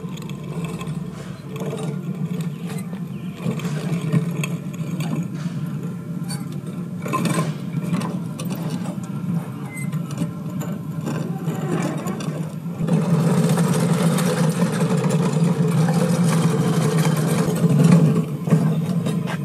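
Walk-behind pavement crack-sealing machine running with a steady hum, growing louder about thirteen seconds in.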